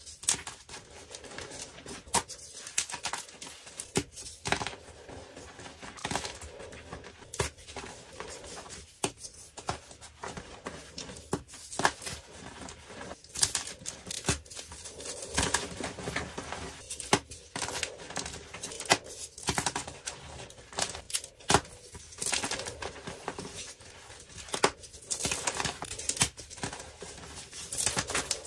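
Dyed gym chalk blocks crushed and crumbled by hand: irregular sharp crunches and snaps as the blocks break, over a grainy crumbling of powder and small pieces.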